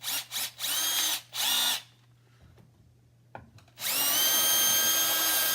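Electric drill with a 5/32-inch bit: a few short trigger blips in the first two seconds, each rising in pitch as the chuck spins up, then after a pause and a click it runs steadily at full speed, widening a screw hole that was too small for the screw.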